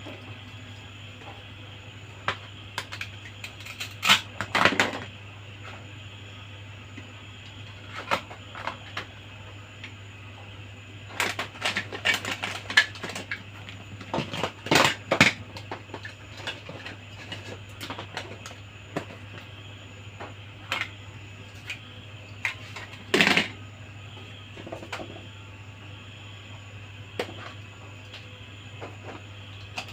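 Small plastic toy pieces clicking, tapping and clattering as they are handled, in scattered single clicks and short flurries, over a steady low hum.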